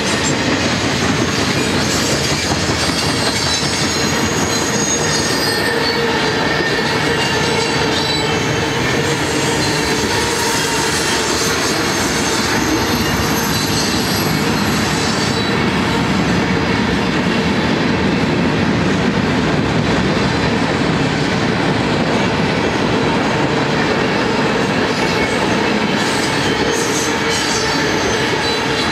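Freight train's tank cars and covered hoppers rolling past close by: a steady rumble and rattle of steel wheels on rail, with thin high squeals from the wheels coming and going over it.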